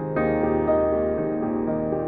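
Slow, gentle instrumental background music led by piano or keyboard. A new chord with a low bass note comes in just after the start.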